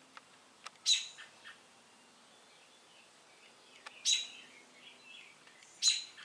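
A small bird chirping: three sharp, high calls about a second in, around four seconds in and near the end, with a few fainter chirps between.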